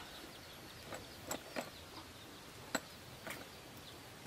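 A few light metallic clinks and clicks, about five spread unevenly over four seconds, as sockets and small tools are picked through in a socket-set case.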